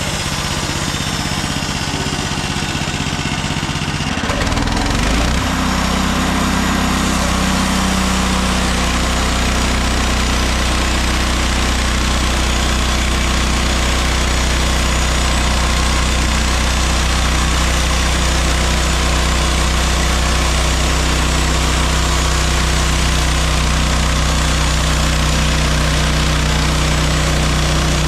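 Gasoline engine of a Mechmaxx SM32 portable bandsaw sawmill running; about four seconds in it speeds up, then holds a steady higher speed.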